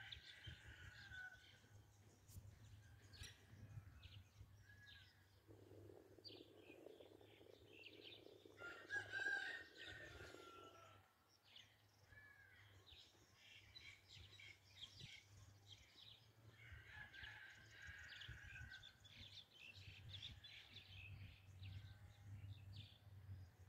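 Faint outdoor ambience of birds calling now and then, over a low steady hum. The loudest and longest call comes about nine seconds in.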